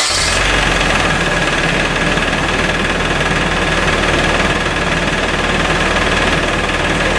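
Nissan 240SX (S13) engine catching at the very start and settling into a steady idle, with a steady high-pitched tone over the running engine.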